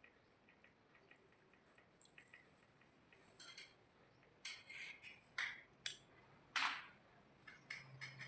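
Scattered small clicks and short wet, splashy sounds of a plate of water-soaked rice (pakhal bhat) and dishes being handled, growing busier about halfway through, with the loudest splash about six and a half seconds in.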